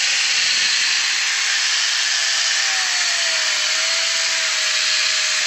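Corded angle grinder fitted with a chainsaw bar and chain, running steadily as it saws through a log. Its motor whine sags in pitch about three seconds in, as it is loaded by the cut.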